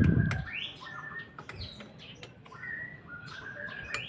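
Birds chirping in repeated short, rising calls. A dull low thump sounds at the very start, and a few sharp clicks follow.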